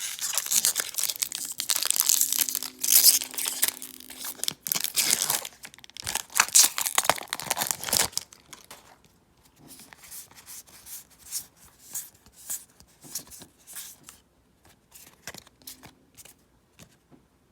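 A foil Magic: The Gathering booster pack being torn open, its wrapper crackling and crinkling loudly for several seconds. Then softer, scattered rustles and clicks as the cards are handled.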